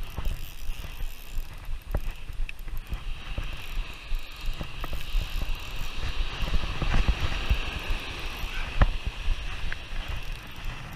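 Spinning reel being cranked to wind in a hooked fish, its gears whirring steadily, with wind buffeting the microphone and a few sharp knocks of handling.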